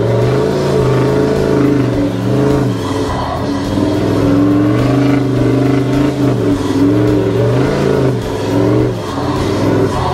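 Toyota LandCruiser 79 Series engine under load while driving in soft sand, its revs rising and falling several times.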